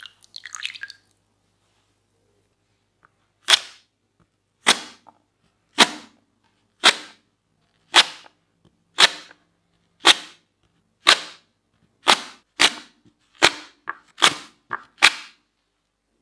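A raw potato slid stroke by stroke across a waffle-cut mandoline slicer blade: about a dozen crisp slicing strokes, roughly one a second, coming faster near the end. Water drips and trickles briefly at the start as a wet potato is lifted from a bowl.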